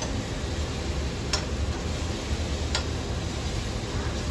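Metal spoon clicking against a steel kadhai while stirring frying onions, two sharp knocks about a second and a half apart over a steady low hum.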